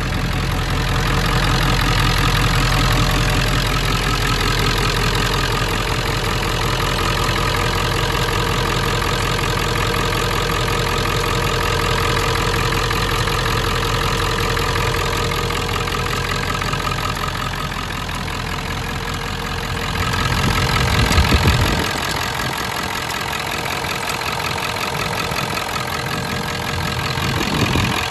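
Ford 7.3L Powerstroke turbo-diesel V8 idling steadily with the hood open. About two-thirds of the way through there is a brief louder moment, after which the deep low end of the sound drops away.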